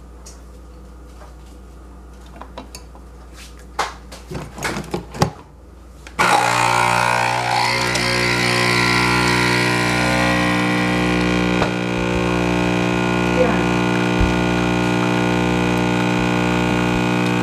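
Nespresso capsule coffee machine: a few clicks and knocks as the capsule is loaded and the lever shut, then about six seconds in its vibratory pump starts with a sudden, loud, steady buzz as it brews espresso into the cup.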